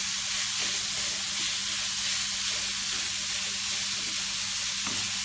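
Raw chicken mince frying in oil in a non-stick pan over a low flame, sizzling steadily as a spatula stirs it.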